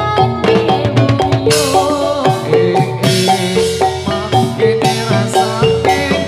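Javanese gamelan music accompanying jathilan dancing: metallophones ring out a fast, repeating melody over drums on a steady beat, with a bending higher melodic line above.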